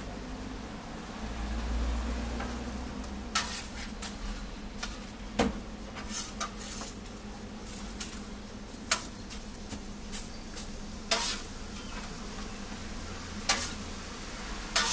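A steel spatula scraping and clicking against a steel flat-top griddle in short, irregular strokes, about eight sharp ones, over a low steady sizzle of an egg pancake frying.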